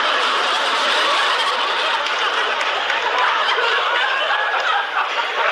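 Sitcom audience laughter, many people laughing at once, steady throughout.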